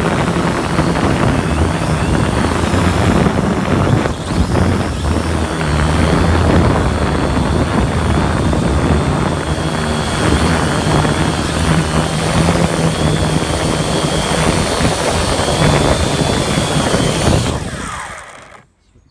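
Quadcopter drone's electric motors and propellers running right next to the microphone, a steady buzzing whine over a rush of air. Near the end the drone comes down in the grass and the sound dies away quickly as the motors stop.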